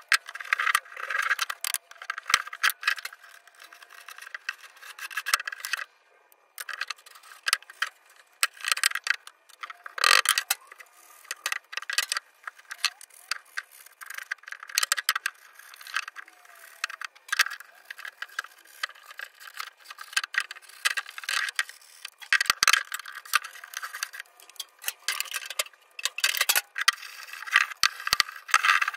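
Felt lining being pressed and rubbed into a wooden tray: irregular scraping and rustling strokes, with a few sharp knocks of wood on the bench.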